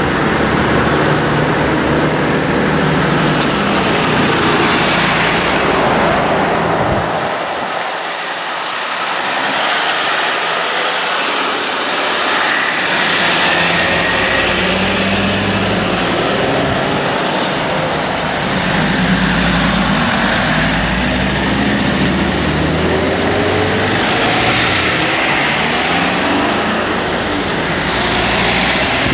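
Engines of Mercedes-Benz Sprinter ambulances pulling out and driving past one after another, with tyre and road noise and a brief lull about eight seconds in.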